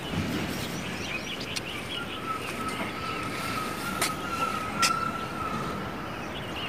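Outdoor background noise with a faint, steady high tone held for about three seconds in the middle, a few faint short chirps, and a couple of brief clicks.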